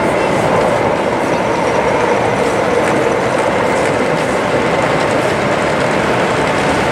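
O gauge (7mm scale) model train of coaches rolling past on the layout track, wheels clicking over the rail joints, over a steady, even background noise.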